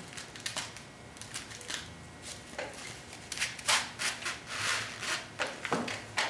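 Broom-stitching twine and needle rubbing through the packed broomcorn of a broom held in a hand press: a run of irregular scratchy rubbing strokes that grow louder and come closer together about halfway through.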